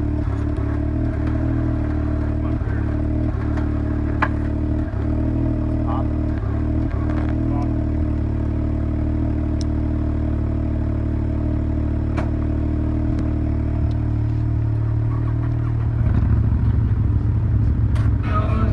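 Side-by-side UTV engine idling steadily, with a few sharp knocks and clatters. About sixteen seconds in it is given throttle and runs louder and rougher as the vehicle works up over the rocks.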